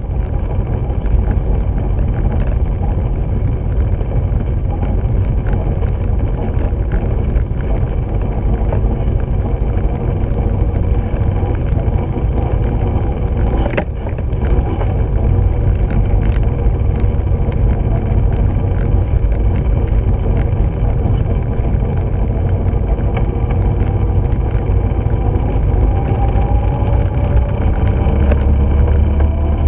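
A dryland training rig pulled by a sled dog team, rolling steadily along a dirt trail with a constant low rumble, and one sharp knock about fourteen seconds in.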